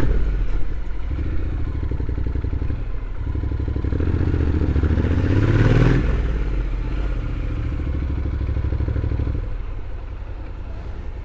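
Honda NC750X's parallel-twin engine running as the bike rides along, the revs climbing from about three seconds in to a peak near six seconds, then dropping back and easing off near the end.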